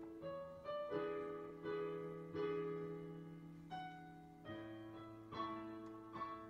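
Soft background piano music: single notes and chords struck every half second or so, each ringing and fading away.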